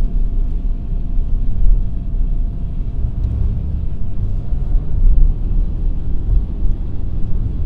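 Car driving on a wet track, heard from inside the cabin: a steady low rumble of engine and tyre noise as it goes around a curve. A faint steady whine fades out about halfway.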